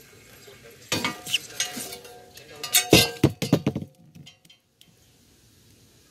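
A smashed intercom speaker's stamped metal frame clattering and clanking, a cluster of sharp knocks with a ringing metallic tone from about a second in, loudest near three seconds and stopping about four seconds in, as the broken speaker is wrenched loose from its wire.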